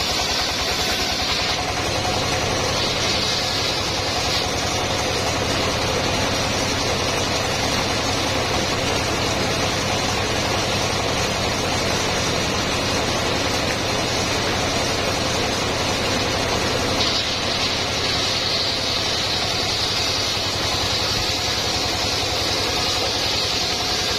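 Homemade circular-saw sawmill running steadily, its engine droning with an even pulse. A higher hiss swells and fades a few times, most strongly through the last several seconds.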